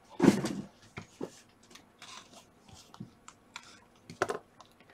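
Hands handling and opening a small cardboard trading-card box. A loud rustling scrape comes just after the start, then scattered light clicks and taps, and another brief rustle about four seconds in.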